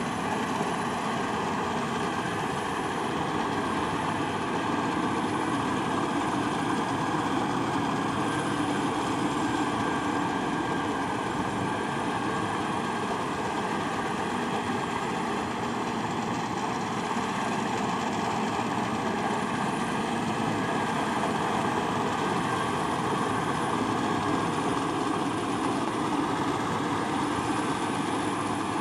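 Farm machinery engine running steadily, with no change in speed.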